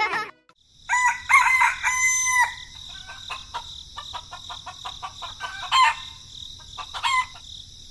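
Rooster crowing: one long pitched call starting about a second in, then a couple of shorter calls, over a steady high-pitched hiss.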